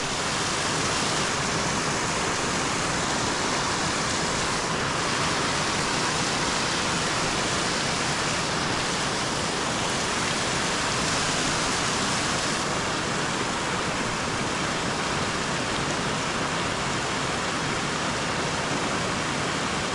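Shallow river water rushing over a line of rocks and through a riffle: a steady, even rush with no breaks.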